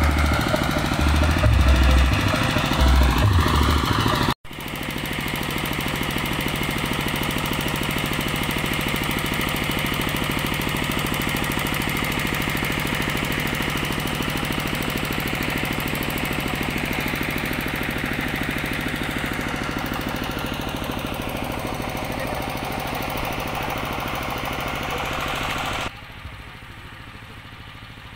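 Heavy bass pulses for the first few seconds. Then, after a sudden cut, a small engine runs steadily with a fast, even rattle, and drops abruptly quieter a couple of seconds before the end.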